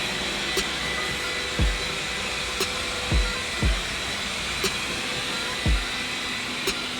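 Xiaomi Mi robot vacuum-mop running with a steady whirr of its suction motor. A low thudding beat, with a sharp click about every two seconds, runs over it.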